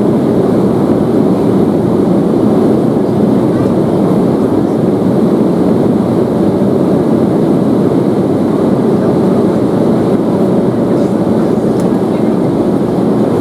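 Airliner cabin noise during descent: a steady, even drone of engines and rushing air heard from inside the passenger cabin.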